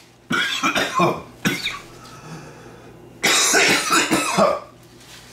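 A man coughing in two fits: a run of coughs starting just after the start, then a second, longer run a little past three seconds in.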